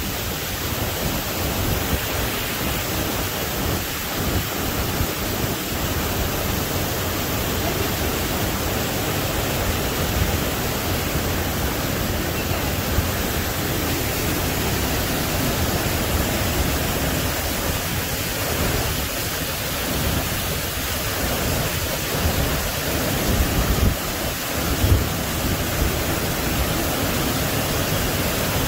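Creek water rushing over rocks in a small waterfall cascade: a steady rushing hiss, with a few brief low bumps on the microphone about three quarters of the way through.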